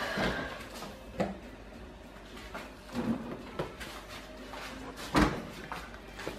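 Refrigerator door opened, then a few knocks and clunks as a plastic juice bottle is taken out and handled. A sharp knock about five seconds in is the loudest.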